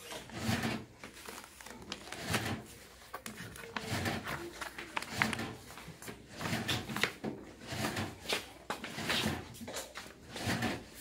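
Paper rustling and crinkling as the stiff pages of a large spiral-bound sketchbook are turned and smoothed flat by hand, in a run of short rustles and soft flaps.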